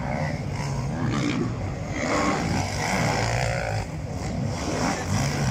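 Racing quad (ATV) engines revving on a motocross track, their pitch rising and falling.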